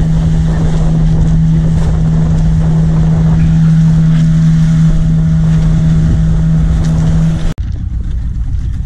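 Motorboat engine running steadily at cruising speed, a loud hum with a strong low drone and some wind on the microphone. Near the end it drops out abruptly and comes back quieter and duller.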